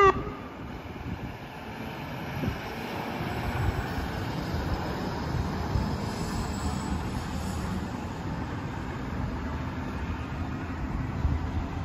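Fire engine's diesel engine running with a low, steady rumble as it pulls out of the station bay, growing a little louder a couple of seconds in.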